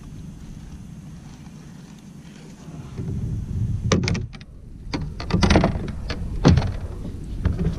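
Hollow knocks and thuds of a largemouth bass being lifted off a measuring board and handled in a plastic fishing kayak, several sharp knocks over a low rumble from about three seconds in.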